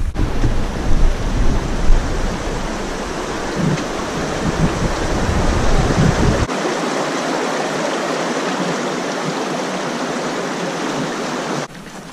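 Steady outdoor rushing noise, with wind buffeting the microphone in a low, uneven rumble over the first half. About halfway in the rumble drops out, leaving an even hiss.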